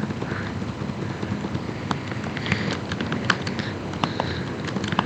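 Scattered light clicks and taps, irregular and unrhythmic, over a steady low room background.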